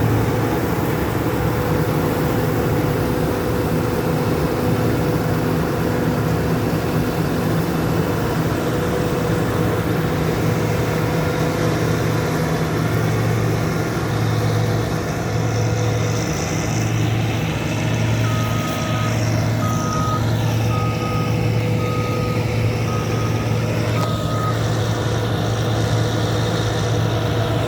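Combine harvester running steadily while harvesting wheat, a loud low pulsing drone with a steady higher tone over it. About two-thirds of the way through, a reversing alarm sounds about seven short beeps at one pitch.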